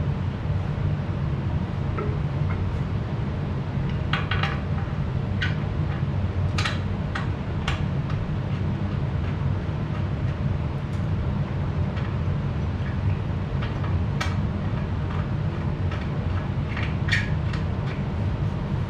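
Steel hitch parts and pins clinking and tapping as they are handled and fitted, a couple of dozen short metal clinks in loose clusters over a steady low rumble.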